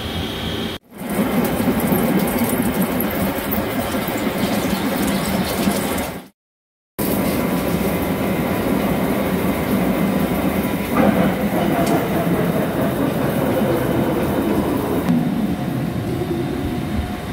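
Vertical lathe rough-turning a large steel workpiece: a steady, loud cutting noise from the turning table and the tool biting the metal, broken off twice by sudden silences, about a second in and again about six seconds in. Near the end the cutting stops and the machine carries on running more quietly, with the rough pass finished.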